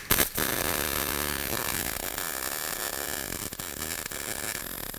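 Hard-wire (solid-wire, gas-shielded) MIG welding arc from an H&S Autoshot HSG130 110-volt welder laying a bead. The arc strikes with a few sharp crackles at the start, then runs as a steady, even crackling hiss.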